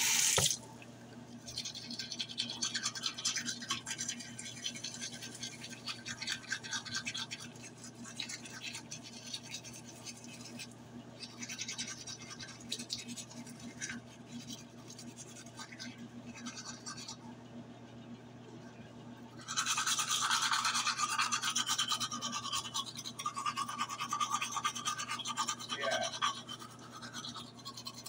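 Manual toothbrush scrubbing teeth: rapid bristle strokes in stretches with short pauses, louder in the last third. A brief bump at the very start.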